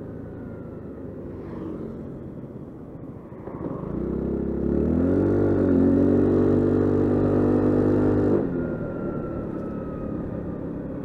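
Honda SH 350 scooter's single-cylinder engine at a light cruise, then opened up hard about four seconds in: the engine note rises, holds a steady pitch while the scooter accelerates, and drops away abruptly as the throttle is closed a little after eight seconds in.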